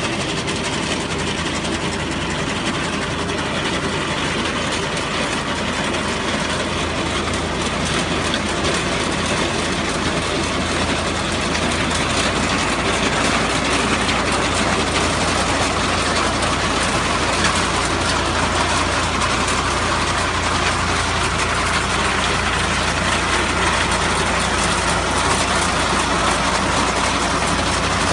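Tractor with a mounted reaper running: steady, loud engine and machinery noise, growing a little louder about twelve seconds in.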